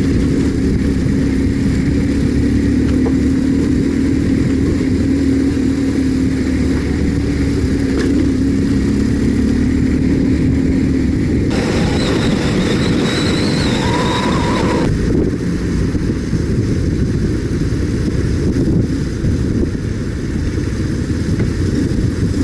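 BMW R1150GS boxer-twin motorcycle engine running steadily under way, with a dense low rumble. For a few seconds past the middle the sound turns brighter and hissier, with a wavering high whine in it.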